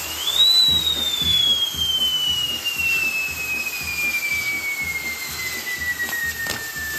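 Firework castle wheel burning: a pyrotechnic whistle climbs sharply in the first half second, then falls slowly and steadily in pitch over a fizzing hiss. A single pop comes near the end.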